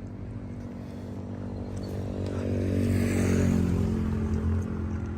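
A vehicle engine running, swelling louder through the middle and then easing off.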